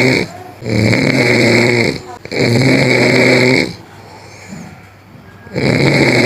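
Loud snoring in long, even snores of over a second each. One ends just after the start, two more follow close together, then after a pause of about two seconds another begins near the end.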